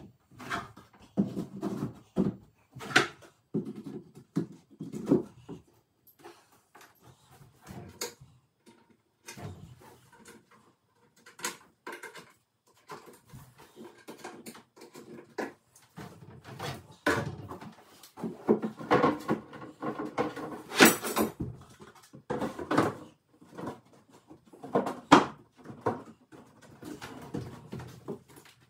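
Irregular knocks, clacks and scrapes of white particleboard furniture panels being handled and fitted together by hand, with louder clusters of knocks past the middle.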